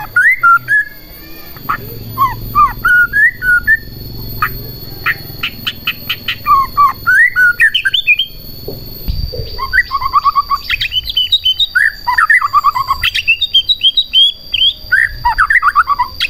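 Male white-rumped shama singing in bursts of quick, sweeping whistled phrases, with a run of sharp clicks about five seconds in and short pauses between phrases.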